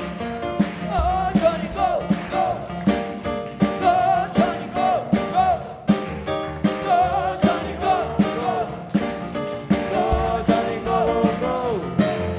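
Live rock and roll band playing, drums keeping a steady beat under held chords, with a melody line sliding up and down over them.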